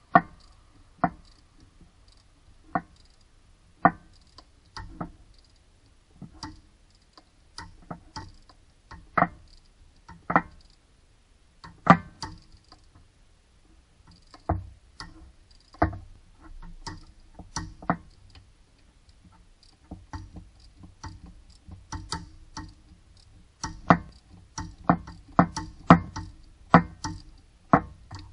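Ratchet wrench working a bolt on an engine's water pump pulley: sharp, irregular metallic clicks, coming quicker near the end at about two a second.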